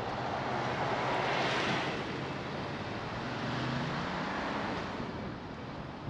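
Steady road and traffic noise from driving through city streets. A louder whoosh swells about a second and a half in, and a low engine hum rises around the fourth second.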